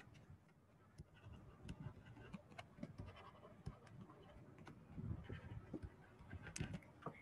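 Near silence: soft scattered ticks and taps of a stylus writing on a tablet screen, over faint room tone.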